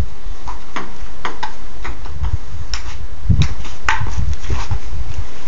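Ping pong ball clicking off the paddles and table during a rally, a string of irregular sharp ticks, over a steady low rumble.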